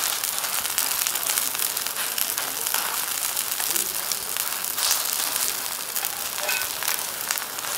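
Green onion pancake batter frying in oil on a hot flat griddle: steady sizzling and crackling.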